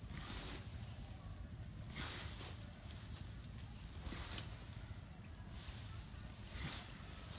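Steady high-pitched insect chorus, with a few faint rustles and scrapes as a Komodo dragon tugs at a wild boar carcass in the leaf litter.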